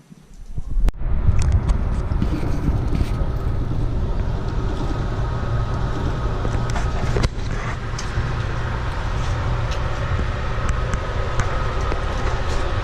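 Steady rumble of a moving motor vehicle, which comes in within the first second and keeps on evenly.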